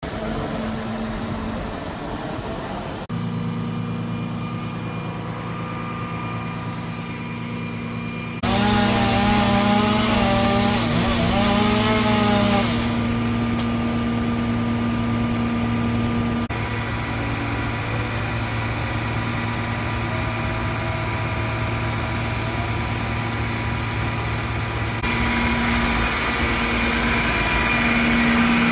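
A large engine running steadily through several abrupt cuts, with a chainsaw running and cutting over it for a few seconds about a third of the way in, its pitch wavering.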